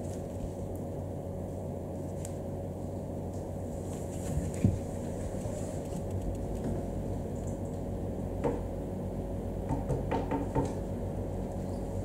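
Steady low room hum with a few scattered soft knocks and thumps: a dull thump about four and a half seconds in, the loudest, another knock a few seconds later, and a short run of light knocks around ten seconds.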